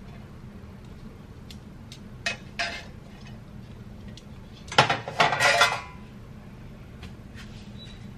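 Metal kitchen tongs clinking against a pot and bowl as food is served: two light clinks a couple of seconds in, then a longer, louder clatter of metal cookware about five seconds in as the pot and tongs are set down on the stovetop.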